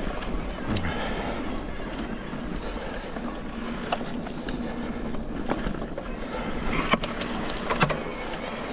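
Mountain bike rolling down a dirt trail: a steady rolling rush with several sharp clacks and rattles from the bike in the second half.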